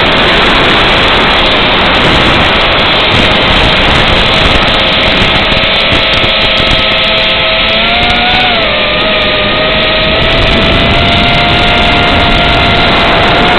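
Brushless motors and propellers of an Eachine Racer 250 quadcopter whining steadily under heavy hiss, as picked up by the onboard analog video link's audio. The pitch rises briefly and drops back a little past halfway.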